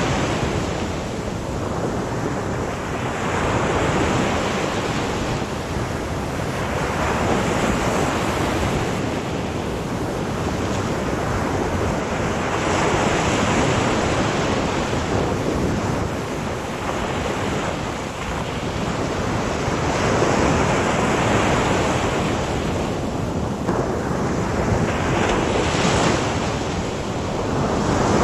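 Sea waves breaking and washing on the shore in a steady surf, swelling and easing every few seconds, with some wind.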